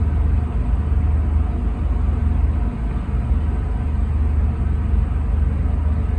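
Steady low rumble of a vehicle running, without a break.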